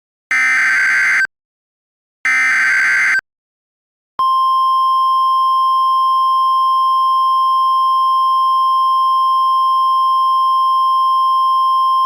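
Mock Emergency Alert System signal: the second and third SAME header data bursts, each a harsh electronic warble about a second long with a second of silence between, then the single steady attention tone (the National Weather Service's 1050 Hz tone) starting about four seconds in and holding. The header bursts encode the alert and the tone announces that a spoken emergency message follows.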